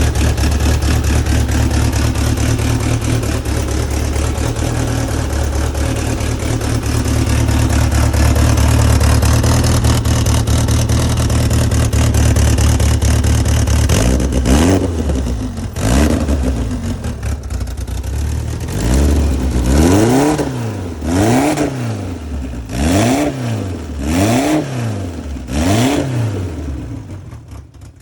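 Turbocharged DSM engine running steadily for about half the time, then blipped repeatedly: a string of quick revs, each rising and falling, about one a second, fading near the end.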